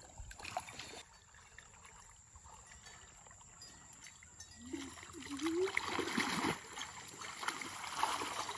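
Pond water splashing and sloshing as people wade through it and grab at fish by hand. It is fairly quiet at first and louder in the second half, with a brief voice call about halfway through.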